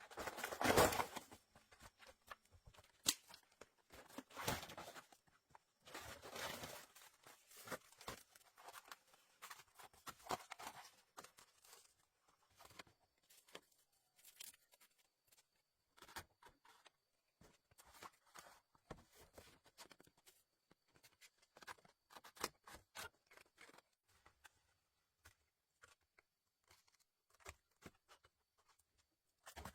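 Faint rustling and scattered light knocks and clicks of hands-on work with natural materials. There are several louder rustles in the first dozen seconds, then only sparse light ticks.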